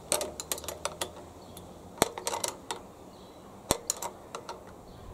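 Metal spanner clicking and ticking against a small nut as the lawnmower airbox's retaining nuts are tightened, in three short clusters of clicks.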